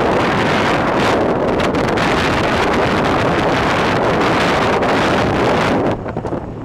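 Wind rushing over the microphone of an open vehicle driving on a dirt road, with the vehicle's running noise underneath; it eases briefly near the end.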